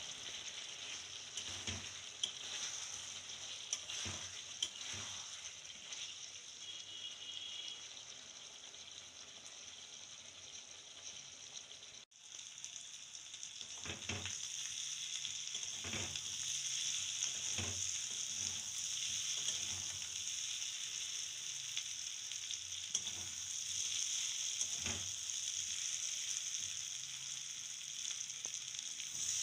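Pigeon meat and potato pieces sizzling as they fry uncovered in oil in a kadhai, with a steady hiss throughout. A metal spatula scrapes and knocks against the pan now and then as the pieces are stirred.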